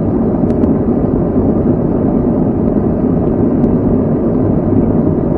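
Forge running with a steady low roar and a faint steady hum, with a few faint metallic ticks over it.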